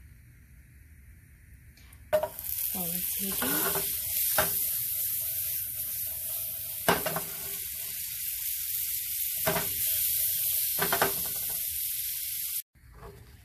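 Butter sizzling as it melts and foams in a hot nonstick frying pan. The hiss starts suddenly about two seconds in, with a few sharp clicks through it, and stops abruptly near the end.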